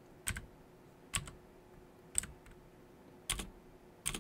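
Computer keyboard keys pressed one at a time, a handful of separate keystrokes about a second apart while code is being edited.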